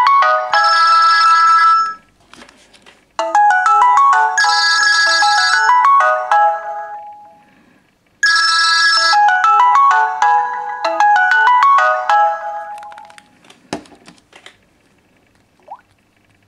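Mobile phone ringtone: an electronic melody of quick stepping notes, repeated in phrases about five seconds long, that stops about thirteen seconds in, followed by a single click.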